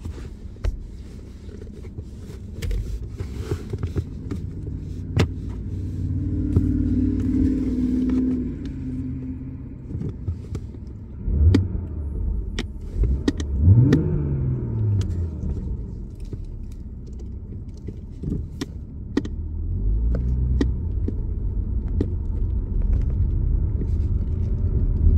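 BMW engine running and being revved from the accelerator pedal: the revs climb about six seconds in, swing sharply up and back down around halfway, and build again near the end. Scattered short clicks and taps sound throughout.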